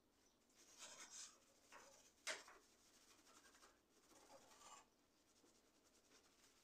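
Faint rubbing of a cleaning sponge wiped back and forth over a stove's metal control panel, in a few short strokes, with one sharp click a little after two seconds in.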